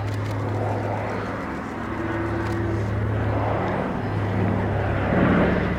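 The twin radial engines of a PBY-5A Catalina drone steadily in flight, swelling slightly about five seconds in. The engines are Pratt & Whitney R-1830 Twin Wasps.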